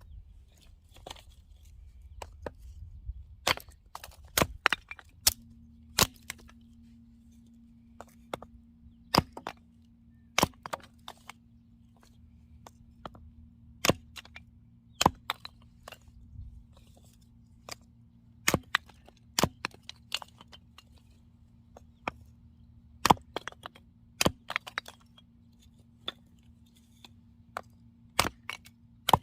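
Axe splitting firewood: sharp cracking strikes at irregular intervals, often two in quick succession. A low steady hum starts about five seconds in.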